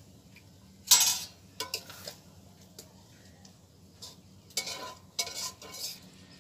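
Long metal spatula stirring and scraping in a large iron wok of steaming, boiling palm-juice mixture, in several short bouts. The loudest scrape comes about a second in.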